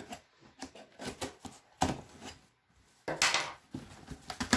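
Cardboard shipping box being handled and opened: scattered knocks and scrapes, with a longer, louder rasp about three seconds in.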